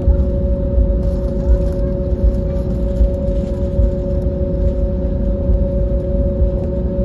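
Airbus A320neo cabin sound while taxiing: its Pratt & Whitney PW1100G geared turbofans at idle hum on two steady tones over a continuous low rumble.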